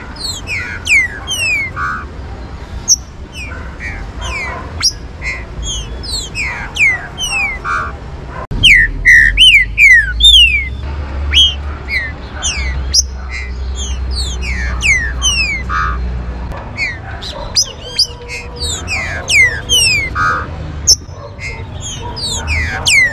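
Green-winged saltators (trinca-ferro) singing: a busy run of quick whistled notes, each sliding down in pitch. A low rumble lies under the middle stretch.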